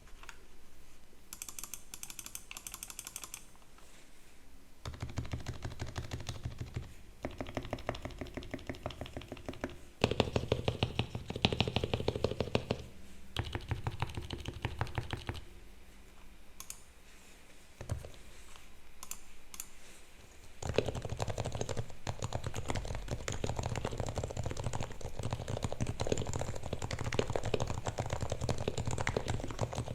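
Typing on a Happy Hacking Keyboard Hybrid Type-S, with its silenced Topre electrostatic capacitive key switches, fully lubed and dampened with 3 mm Poron foam: a rapid run of soft key presses in spells of a few seconds, then continuous typing through the last third.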